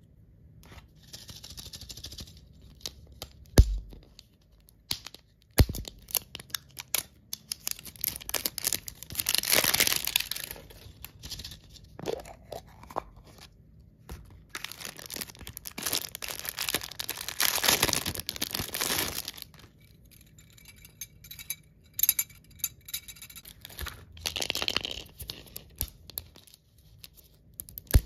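Plastic candy wrappers and cellophane shrink-wrap crinkling and tearing as they are pulled off, in several long bursts. There are a couple of sharp knocks a few seconds in.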